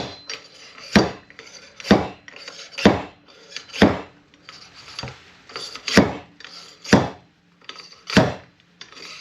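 Fork seal driver knocked repeatedly down the fork tube of a Honda Transalp 700 to drive the new oil seal into the fork slider: about eight or nine sharp knocks, roughly one a second, with lighter taps between.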